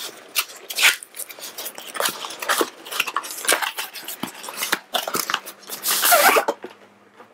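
Cardboard box being opened by hand: flaps and sides scraping and rubbing, with short crackles and taps. There is a longer, louder scrape of cardboard about six seconds in.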